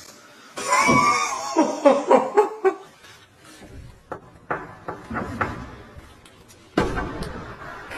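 A person laughing in a quick run of short peals for about two seconds, then scattered knocks and clicks, and a sudden louder noise near the end.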